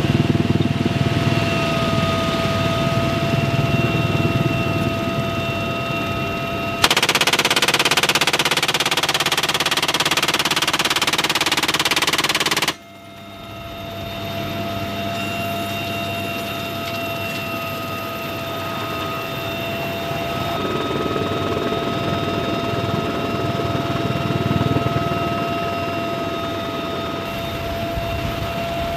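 UH-1Y Huey helicopter in flight, heard from the open cabin door: a steady high whine with rotor rumble underneath. About seven seconds in, a door-mounted heavy machine gun fires one sustained burst lasting around six seconds, which cuts off abruptly.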